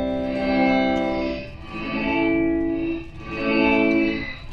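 Electric guitar played through a reverse reverb effect: sustained chords swell in and fade away, about three times in a row.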